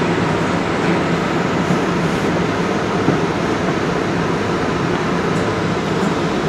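A DART light rail train running steadily, heard from inside the passenger car as an even low rumble.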